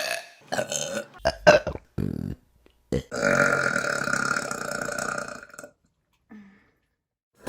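Women burping: a run of short burps in quick succession, then one long, steady burp lasting about two and a half seconds.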